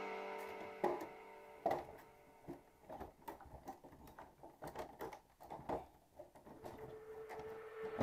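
Background music fading out, then faint, scattered light clicks and taps of handling, as of hands moving over hard plastic, about a dozen over several seconds; a steady musical tone comes back in near the end.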